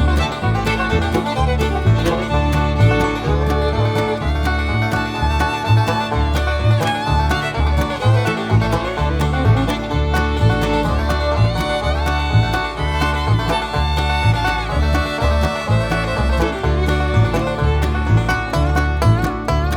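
Background bluegrass music: fast picked banjo and guitar with fiddle over a steady, bouncing bass.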